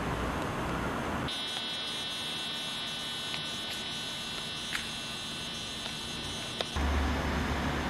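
A steady, high-pitched electronic buzz lasting about five seconds, starting and stopping abruptly. While it sounds, the low background rumble drops away. Before and after it there is a low rumbling background.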